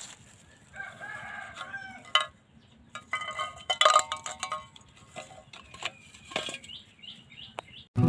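A rooster crowing about a second in, with clucking, and sharp metallic clinks of empty tin cans being picked up and handled.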